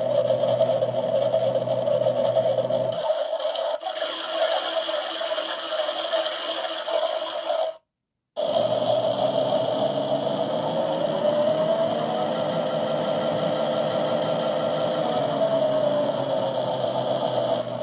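Washing machine running a synthetics 60° wash, its drum motor humming steadily with a whine that rises and falls in pitch in the second half. The sound cuts out completely for about half a second just before the middle.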